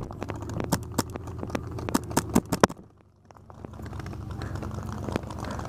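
Paintball markers firing: an irregular string of sharp pops over a steady low hum, the loudest shots coming in a quick run about two seconds in. The sound then drops away almost to nothing, and a steady low background noise comes back.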